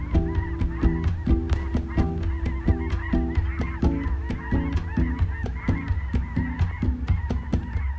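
A flock of geese in flight honking, many calls overlapping in a continuous clamour.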